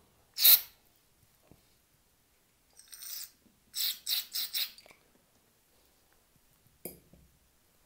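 Aerosol brake cleaner sprayed in short hissing bursts into the fuel passages of a two-stroke outboard carburetor: one strong burst near the start, a fainter one about three seconds in, then four quick bursts in a row. A single short knock near the end.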